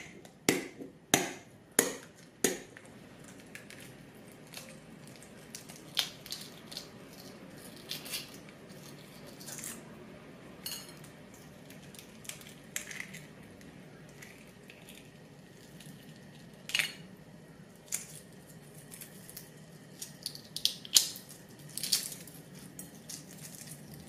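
Hard-boiled egg being cracked against a plate: a quick run of sharp taps in the first few seconds. Then the shell crackles and snaps in scattered small clicks as it is peeled off by hand.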